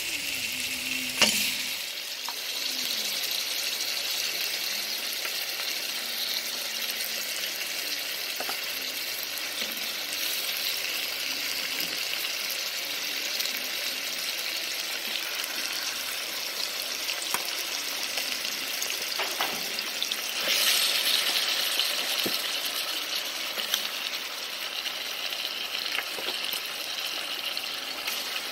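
Chunks of marinated pork sizzling in hot oil with diced onion and bell pepper in a metal pot: a steady hiss that swells louder for a couple of seconds about two-thirds of the way through. A sharp knock comes about a second in, with a few light clicks later.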